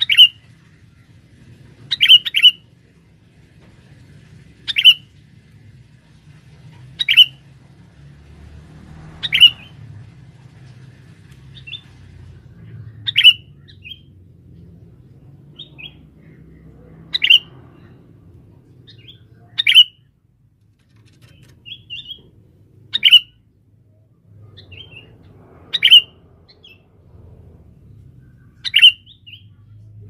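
Male sooty-headed bulbul (kutilang) calling: about a dozen short, sharp calls repeated every two to four seconds, a few followed by softer notes, over a faint low hum.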